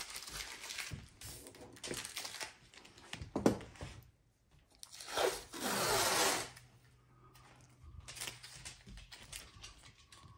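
Green painter's tape being pulled off its roll and laid over glass: scattered short rips and crinkles, and one long, louder rip of tape from the roll about halfway through.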